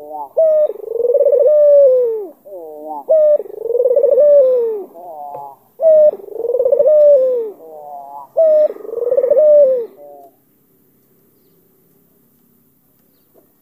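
White Barbary (ringneck) dove cooing: four long, rolling coos about two and a half seconds apart, each led in by a few short quick notes, stopping about ten seconds in.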